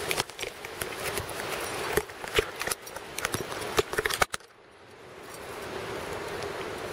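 Irregular clicks and knocks of a handheld camera being handled while walking, for about four seconds. Then the sound drops out suddenly and a steady outdoor hiss slowly comes back up.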